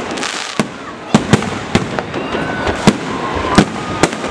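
Aerial firework shells bursting overhead: an irregular string of sharp bangs, about eight in four seconds.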